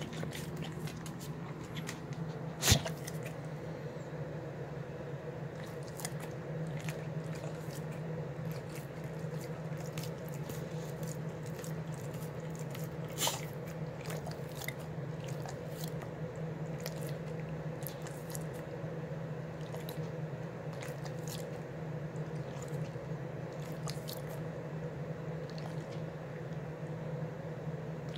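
A dog eating and licking soft, sloppy food, with scattered wet smacking and licking clicks over a steady low hum. Two sharper knocks stand out, one about three seconds in and one about thirteen seconds in.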